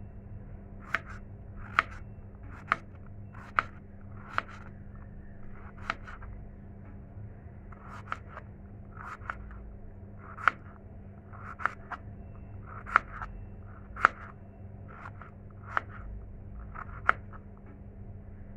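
Kitchen knife cutting a peeled potato into small cubes on a plastic cutting board: sharp knocks of the blade meeting the board, roughly one a second at an uneven pace.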